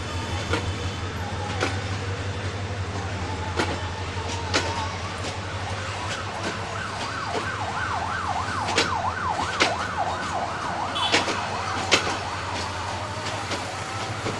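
Bangladesh Railway intercity train pulling slowly out of a station: a steady low hum with irregular sharp clicks of wheels and couplings over the rails. From about five seconds in to about eleven, a fast warbling siren sounds over it.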